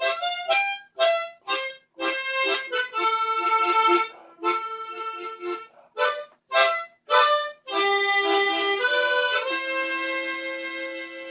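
Solo harmonica playing a slow melody in short, separated notes and chords. It settles on a long held chord near the end that begins to fade.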